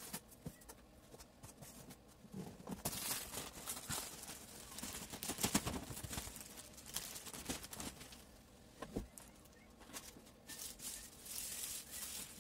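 Cardboard rubbing and scraping with scattered knocks as a boxed collectible figure is slid out of its brown cardboard outer box.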